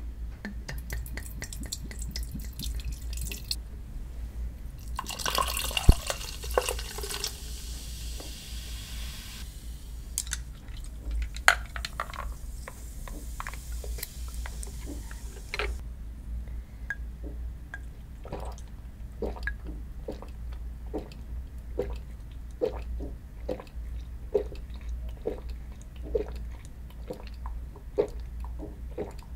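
Soju is poured from a glass bottle into a glass, then beer is poured in with a loud hiss, which gives way to a fainter fizz as the foam settles: somaek being mixed. There is one sharp knock about six seconds in. In the second half comes a steady run of swallowing gulps, about one a second, as the drink is sipped slowly.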